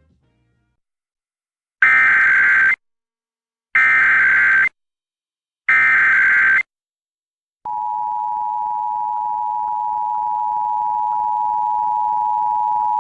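Emergency Alert System SAME header: three loud bursts of digital data squeal, about a second each and a second apart, encoding a Required Monthly Test. About 7.7 seconds in, the EAS attention signal begins, a steady two-tone beat held unbroken.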